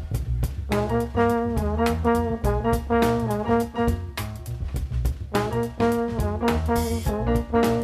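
Jazz-funk quartet playing: a trombone carries the melody in held, sometimes bending notes over a drum kit and upright bass. The trombone breaks off about four seconds in and comes back a second later.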